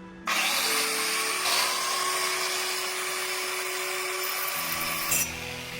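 An electric power tool starts abruptly and runs with a loud, harsh grinding noise, then cuts off about five seconds in. Background music plays underneath.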